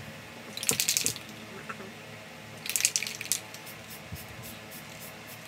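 Aerosol spray paint can spraying in two short bursts, about a second in and about three seconds in.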